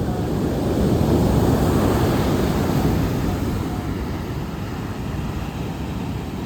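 Ocean surf washing onto the shore: a wave surges up about a second in and slowly subsides.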